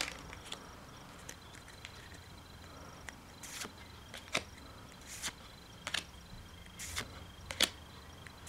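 Pokémon trading cards being handled and flipped through one at a time: faint soft swishes and light snaps of card stock, about one a second from roughly three and a half seconds in.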